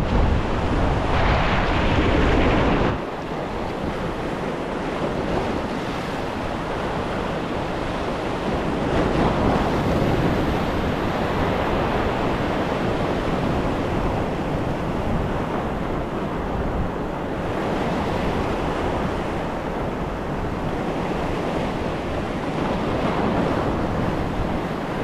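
Sea surf breaking and washing over shore rocks, swelling and ebbing with each wave. Wind rumbles on the microphone, heaviest for the first three seconds and then cutting off suddenly.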